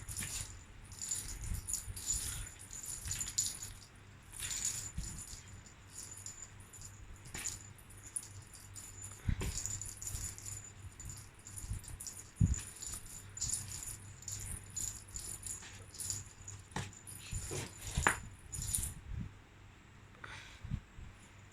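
Small jingle bell on a playing cat, jingling in quick, irregular shakes with a ringing high tone, and a few soft knocks now and then.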